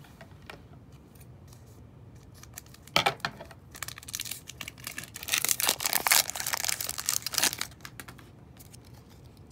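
Foil wrapper of a Pokémon trading-card booster pack being torn open and crinkled, starting with a sharp rip about three seconds in and loudest a couple of seconds later.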